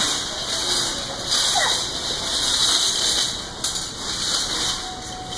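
Child-size wire shopping cart rolling on a hard store floor: a steady rattling rush from the wheels and basket that swells and eases as it is pushed, with a few faint short squeaks.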